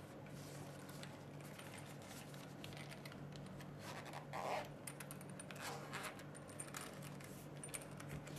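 Handling noise from a zippered hard-shell e-cigarette carrying case: small clicks, taps and scrapes as parts are set in and the case is closed, with one louder rustling scrape about halfway through. A faint steady hum runs underneath.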